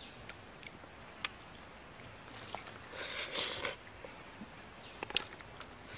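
Mouth sounds of someone eating a soft, juicy fruit: a sharp click about a second in, a noisy slurp around the middle, and a couple of clicks near the end, over a steady high-pitched hum.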